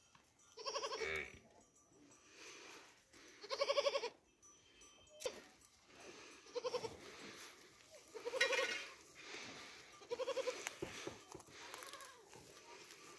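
Goat bleating five times, a short wavering call every two seconds or so.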